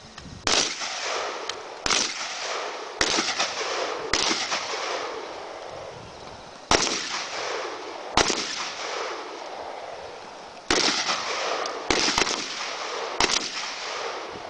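Single rifle shots, about nine in all, roughly one every one to one and a half seconds in three groups with short pauses between. Each crack is followed by a long echo.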